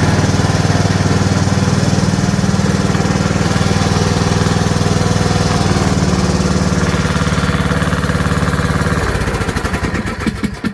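Riding lawn mower's engine running steadily, then shut off: about nine seconds in its beat slows and it winds down to a stop near the end.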